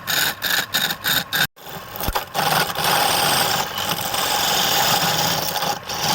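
Wood lathe turning a piece of wood while a cutting tool scrapes and cuts into it. The cutting comes first in quick pulses, about three a second, stops abruptly about a second and a half in, and then resumes as a steady, continuous cutting noise.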